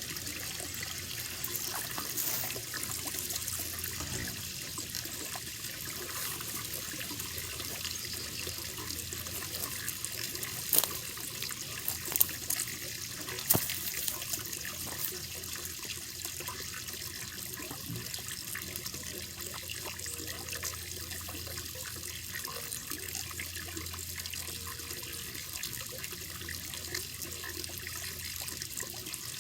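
Water running steadily into a koi pond, a continuous splashing trickle, with a few brief sharp clicks or splashes a little before the middle.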